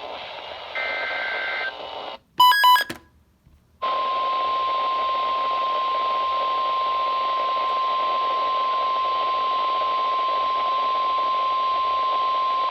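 Emergency Alert System two-tone data burst over radio hiss, ending a second and a half in, then a brief multi-tone beep. After a second of silence comes the NOAA Weather Radio 1050 Hz warning alarm tone, one steady pitch held for about nine seconds, which announces a new warning broadcast.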